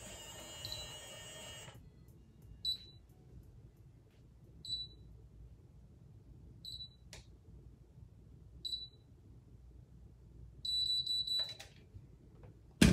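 Conair automatic hair curler beeping: short high beeps about every two seconds, then one longer beep near the end that signals the curl has had enough time. A brief rustle and a sharp click follow at the very end.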